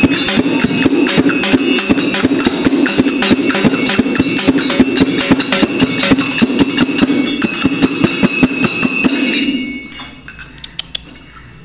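Frame drum beaten with a stick and small hand cymbals playing a fast, dense rhythm over a steady low tone. They stop together about nine and a half seconds in, leaving only a few faint clicks.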